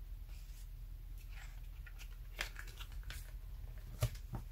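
Faint rustling of paper and card being handled on a table, with a few short light taps and ticks, the sharpest about four seconds in, over a steady low hum.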